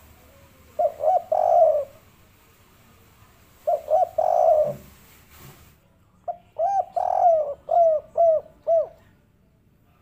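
Spotted dove cooing in the three-note 'kuk 3' pattern: two short coos and a longer one, given twice, then a longer run of about six coos from about six to nine seconds in.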